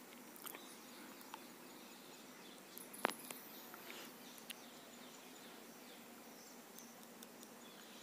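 Faint small clicks and ticks of a screwdriver working the screws of a metal washing-machine tap adapter as they are loosened, with one sharper click about three seconds in, over a low background.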